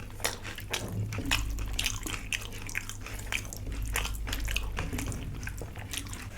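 Close-miked eating sounds: chewing with frequent short, wet mouth clicks and smacks.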